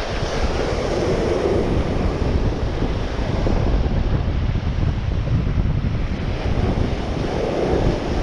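Ocean surf breaking and washing up a sandy beach, with wind noise on the microphone.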